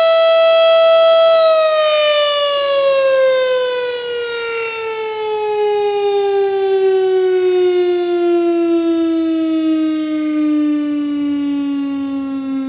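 Federal Signal STH-10 mechanical siren ending its steady Alert tone about a second and a half in, then winding down, its pitch falling slowly and smoothly as the rotor coasts to a stop.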